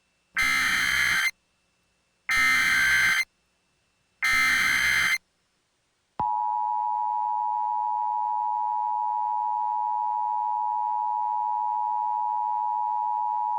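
Emergency Alert System SAME header: three short, harsh digital data bursts about a second apart. About six seconds in, the steady two-tone EAS attention signal sets in and holds. It marks the start of an emergency alert broadcast.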